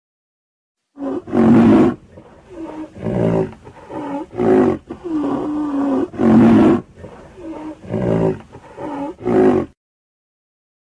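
A rhinoceros calling: a run of about eight loud, pitched bellows with short gaps, the pitch of several bending down and back up, starting about a second in and stopping about a second before the end.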